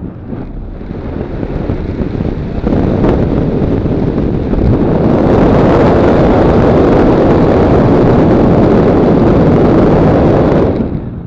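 A motor glider's propeller running under power, recorded from a camera on the aircraft, with heavy wind rushing over the microphone. It builds over the first few seconds, holds steady and loud, then falls away sharply just before the end as the motor is cut and the aircraft glides.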